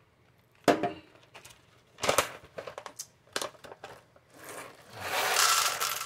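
Bags of coffee beans being handled: a few sharp knocks and clicks, then a longer stretch of crinkling plastic and foil packaging near the end.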